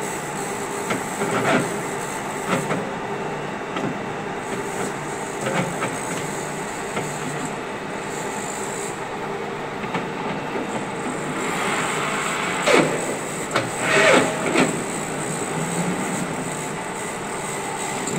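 Steady running noise from a 16K20 lathe's drive, broken by clicks and clunks as its speed and feed gear-change levers are shifted. The loudest clunks come a little past two-thirds of the way through.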